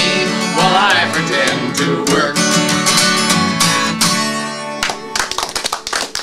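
A man singing the closing line of a folk song over a strummed acoustic guitar, ending on a chord that rings out about four to five seconds in. Hand clapping from a few listeners starts just after.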